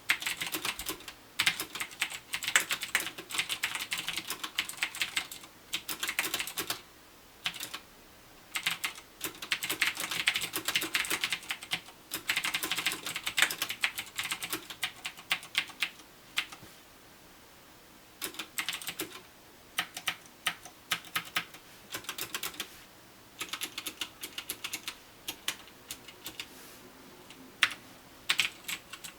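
Typing on a CM Storm Quickfire TK mechanical keyboard with clicky Cherry MX Blue switches: rapid keystrokes in runs of several seconds, broken by short pauses.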